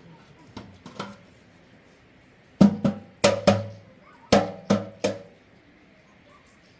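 A series of sharp knocks on something hard that rings briefly with a pitch after each strike: two light ones about a second in, then seven louder ones in quick succession, a little under half a second apart.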